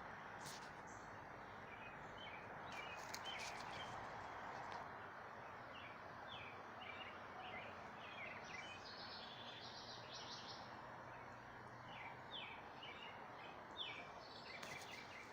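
Small birds chirping in quick, short notes over a steady background hiss.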